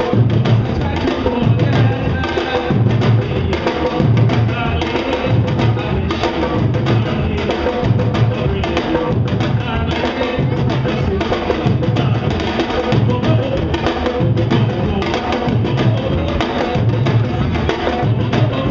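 Samba-reggae drumming by a bloco afro percussion group: deep surdo bass drums beat a steady repeating pattern, about one and a half deep strokes a second, under the sharper strokes of repique and timbau.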